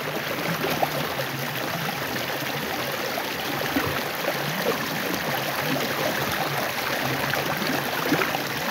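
Steady rush of fast-flowing stream water with whitewash.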